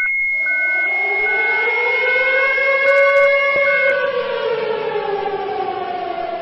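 Civil-defence air-raid siren sounding the attack warning, its wail rising in pitch for about three seconds and then falling. Over the first four seconds a steady high tone and short repeated beeps sound with it.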